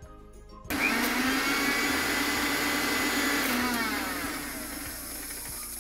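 Electric Aero mixer grinder switched on about a second in, its motor running loud and steady while grinding a thick wet masala paste in the steel jar. Near the end its pitch and level fall as it winds down.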